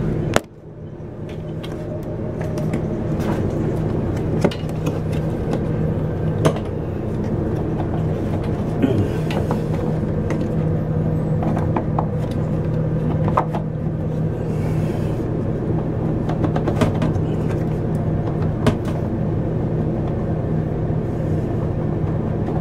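A steady low machine hum, with scattered sharp clicks and knocks from plastic parts of a Dometic portable toilet's flush mechanism being handled and fitted.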